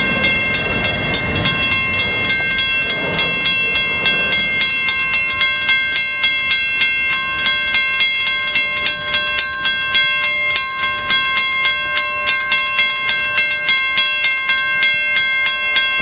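Grade-crossing bell ringing steadily, about three strokes a second, while the last cars of a BNSF intermodal freight train rumble past and fade away in the first four seconds or so.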